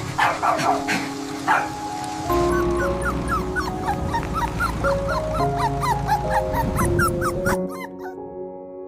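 Puppy barking and yipping several times over background music, then a quick run of short, rising high whimpers. The dog sounds stop near the end, leaving the music alone.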